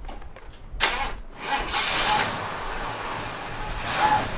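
A 1978 Ford F-150's 351 V8 starting up about a second in and then running steadily, getting briefly louder near the end.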